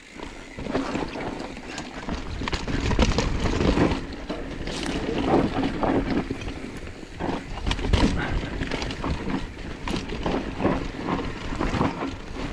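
Enduro mountain bike clattering down a dry, rocky dirt trail at speed: tyres crunching over loose dirt and stones, with a steady stream of irregular knocks and rattles from the bike over the bumps.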